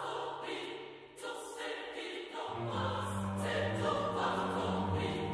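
Choral music: voices holding long chords, with a deeper, fuller chord swelling in about two and a half seconds in.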